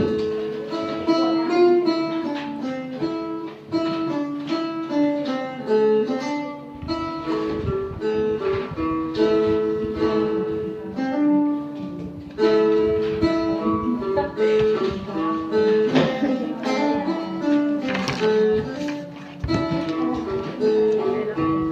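Phin, the Isan plucked lute, playing a quick melody of separate plucked notes.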